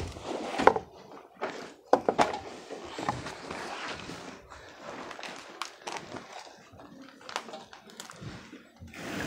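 Handling noise from someone crawling in a crawlspace: scattered knocks, taps and rustling. The loudest are a sharp knock under a second in and a cluster of knocks about two seconds in.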